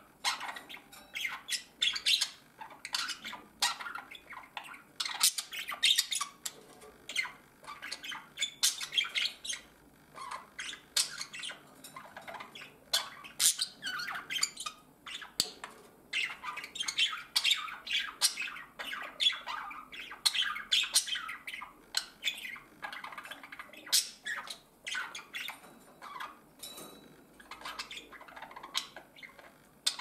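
Budgerigars chattering close up: a fast, continuous run of short chirps, clicks and squawks.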